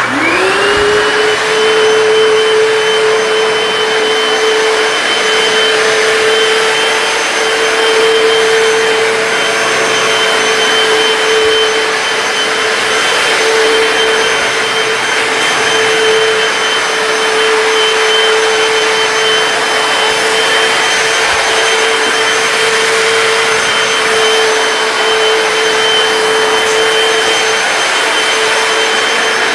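Hoover PowerDash hard floor cleaner switched on, its motor spinning up in the first second, then running steadily with a constant hum, a high whine and a rushing suction noise.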